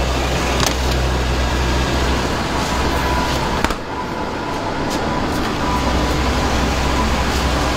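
Steady low hum and rushing noise of running kitchen machinery. A click comes about halfway through, the low hum drops out for a couple of seconds, then it comes back.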